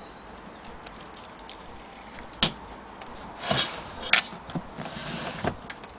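Handling noises: a single sharp click about two and a half seconds in, then a few short rustles and knocks.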